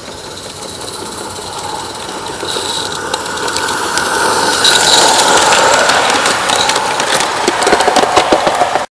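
Live-steam garden-scale locomotive approaching and passing close by, with steam hiss and a rapid train of clicks. It grows loudest about halfway, with a denser run of clicks near the end.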